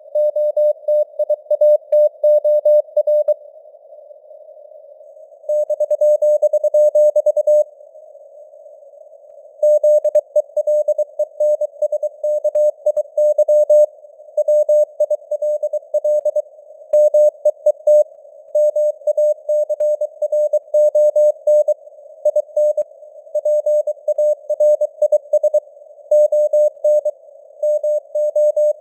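Morse code sent at 23 words per minute: a single mid-pitched tone keyed on and off in dots and dashes, over a faint hiss of simulated radio noise. The sending pauses for about two seconds twice, around four and eight seconds in, then runs on steadily.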